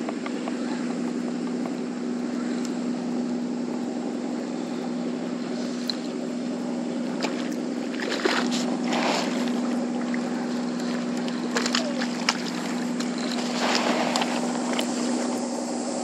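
A steady low engine hum runs without a break, with a rushing noise over it and short louder rushes about halfway through and again near the end.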